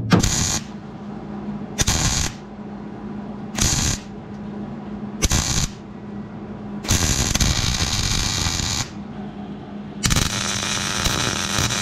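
MIG welder plug-welding the new roof panel to the body of a Nissan S13, with sharp starts and stops: four short bursts about half a second each, then two longer runs of about two and three seconds.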